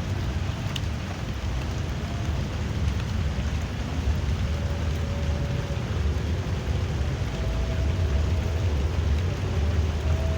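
Drizzling rain falling steadily, with a low rumble underneath and a faint thin tone that comes and goes.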